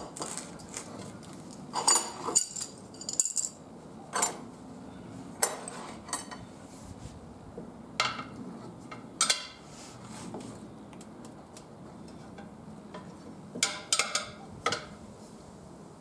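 Metal tire levers clinking and clanking against a cast motorcycle wheel rim in scattered sharp knocks, with a quick cluster near the end, as a stiff new tire's bead is levered on by hand.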